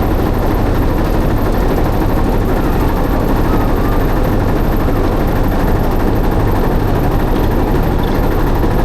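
Motorboat engine running steadily, a loud, even, low-pitched mechanical noise.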